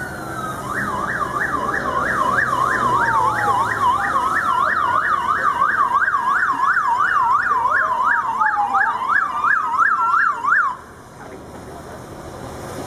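Emergency vehicle sirens sounding together: a fast yelp of about three sweeps a second over a slower rising and falling wail. They cut off abruptly near the end.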